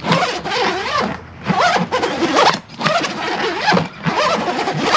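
The extra-big, thick zipper of a soft motorcycle sissy bar bag being pulled along the bag in four long rasping strokes, each about a second.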